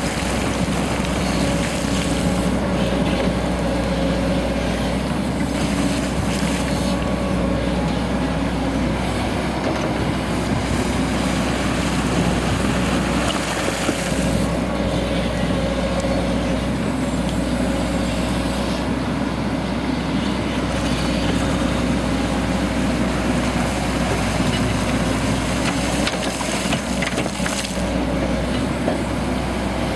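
Caterpillar tracked excavator's diesel engine running steadily as the hydraulic arm digs and moves rock, with now and then a brief clatter of rock and spoil from the bucket.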